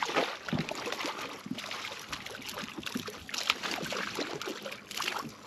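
A hooked spotted seatrout thrashing at the water's surface as it is reeled up to the boat: a run of small, irregular splashes.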